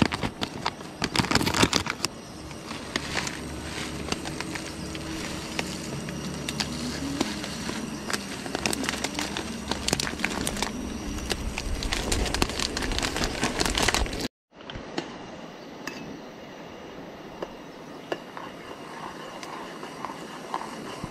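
Plastic food packet crinkling and crackling as it is handled and opened and oats are poured into a steel pot on a butane camping stove, over a steady low rumble. About two-thirds of the way through the sound cuts off abruptly and gives way to a quieter stretch with only a few scattered clicks.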